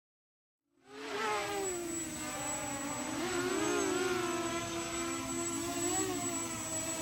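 Quadcopter drone's electric motors and propellers buzzing in flight, starting abruptly about a second in, with a high whine whose pitch wavers up and down as the throttle changes.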